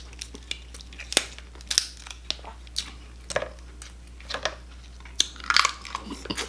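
Crab being eaten by hand: the shell is cracked and picked apart, with crunching and chewing. The sound is a string of irregular sharp cracks and clicks, thickest about a second in and again near the end.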